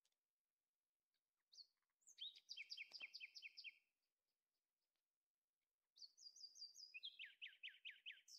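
A songbird singing faintly: two quick phrases of repeated chirps. The first comes about two seconds in, the second starts near the end and drops lower partway through.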